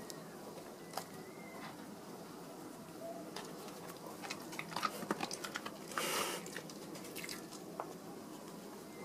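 A dog crunching and chewing small treats it has nosed out of a braided fleece snuffle toy: a run of quick crunches in the middle, with a short breathy burst about six seconds in.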